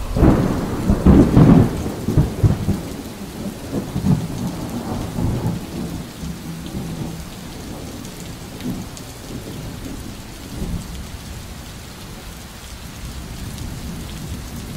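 Thunderstorm: a loud rumble of thunder at the start that dies away over a few seconds, leaving steady rain.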